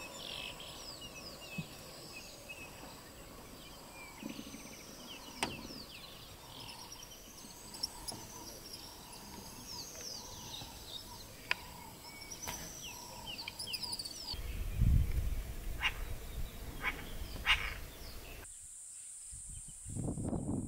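Bushveld ambience: several birds chirping and whistling in short repeated calls over a faint steady high insect hum, with a few sharp ticks and a low rumble about two-thirds of the way through. Near the end the background changes suddenly to a louder, steady high insect buzz.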